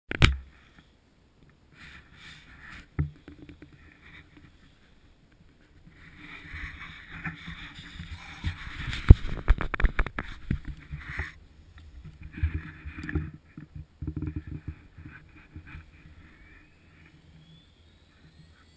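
Irregular rustling and knocking close to the microphone. Near the end a faint, steadily rising whine begins as a small RC helicopter's electric motor starts to spool up.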